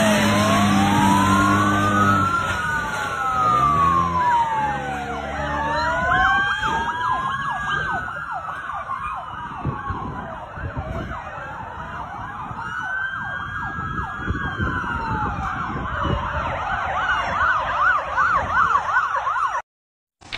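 Several police car sirens sound at once in an overlapping slow rise-and-fall wail, switching to a fast yelp near the end. A low steady tone runs under them for the first two seconds. All of it cuts off suddenly just before the end.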